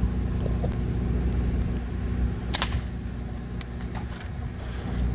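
Vehicle engine idling with a steady low hum. A sharp click comes about two and a half seconds in, and a fainter one a second later.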